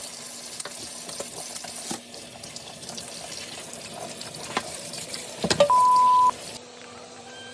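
Water running steadily with a few light clicks and knocks. About three-quarters of the way through comes a single short, steady, high beep, louder than the water.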